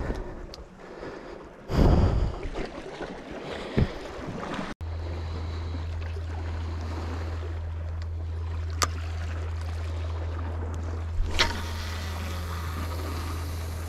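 Wind on the microphone and sea wash at a rocky shoreline, with a loud handling knock about two seconds in. After an abrupt cut, a steady low hum runs under the wind, broken by two sharp clicks.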